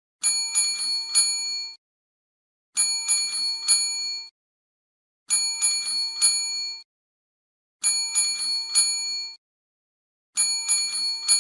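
Service call bell dinged four quick times in a row, then ringing on briefly before cutting off. The same group repeats five times, about every two and a half seconds.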